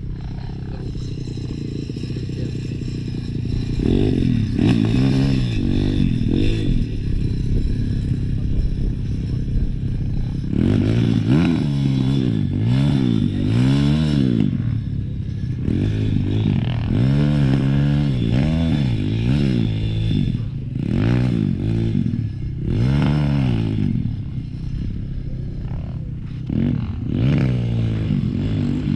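Dirt bike engine revving up and down as it is ridden over the track, its pitch rising and falling in repeated short bursts of throttle.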